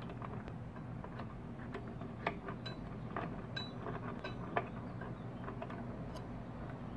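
Small bench vise being opened by turning its sliding T-handle screw: irregular metal clicks and clacks from the handle and screw, over a steady low hum.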